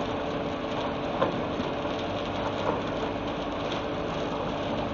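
MAN CLA 25.280 transit mixer running with its diesel engine on and its mixer drum turning: a steady mechanical rumble with a rain-like rushing, and a short sharp sound just over a second in.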